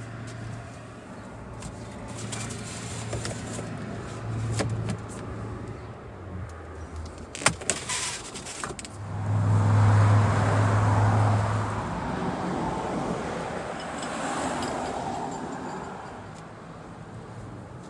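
Handling noise in a car's cargo area: a steady low hum, a few sharp clicks about halfway through as the cargo cover is pulled, then a louder rushing noise for about three seconds.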